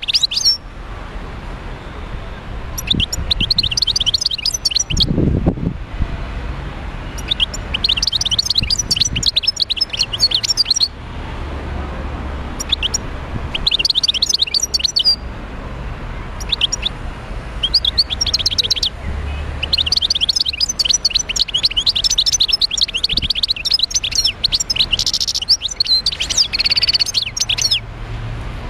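Wild-caught European goldfinch singing in bouts of rapid twittering phrases with short pauses between them, the longest run filling most of the second half. A low background rumble runs underneath, with a brief low thump about five seconds in.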